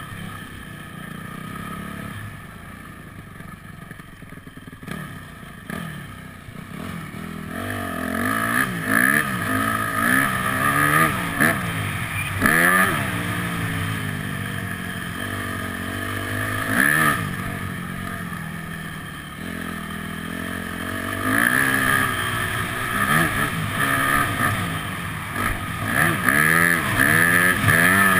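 Yamaha motocross bike engine revving up and down as it is ridden round a dirt track, with the pitch climbing and dropping again and again through the gears. It runs quieter for the first several seconds, then rises in a string of hard revs from about eight seconds in.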